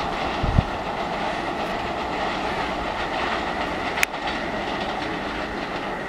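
Passenger train coaches rolling away over curved track and points, a steady noise of wheels on rail with a thin, steady high whine. A low thump comes about half a second in and a sharp click about four seconds in.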